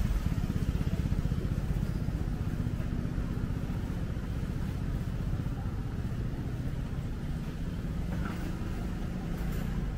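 Low engine rumble of a motor vehicle on a city street, slowly getting quieter.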